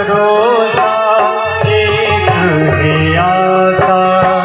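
A man singing a devotional katha song through a microphone, accompanied by a harmonium and hand drums.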